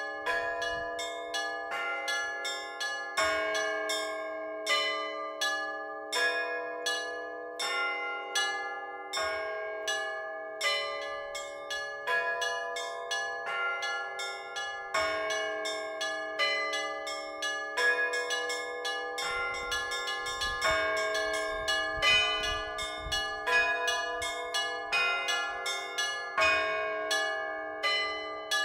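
Orthodox church bells rung in a continuous peal: several bells of different pitches struck in quick, rhythmic succession, several strikes a second, over the steady hum of a lower bell.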